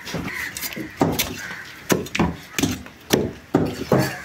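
Heavy cleaver chopping fish on a wooden chopping block: a run of sharp, unevenly spaced thwacks, about ten of them, as blade cuts through fish into the wood.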